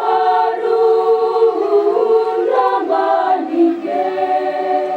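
A choir singing held notes in several parts, moving through slow chord changes.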